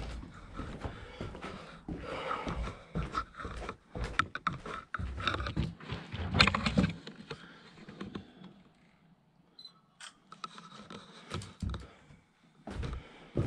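Irregular footsteps, knocks and scrapes, the loudest about six and a half seconds in, with a quieter stretch around nine seconds.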